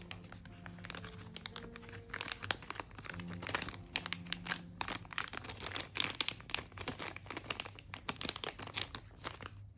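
Paper crinkling and rustling as journal pages are handled, a dense run of quick, irregular crackles.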